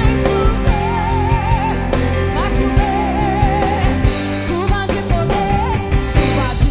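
Brazilian gospel worship song playing with a full band. A lead melody line with wide vibrato wavers over a steady bass and drums.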